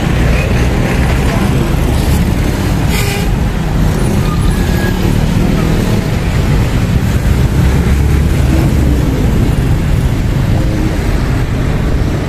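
Steady road traffic of cars and trucks passing, a continuous low rumble of engines and tyres, with a short hiss about three seconds in.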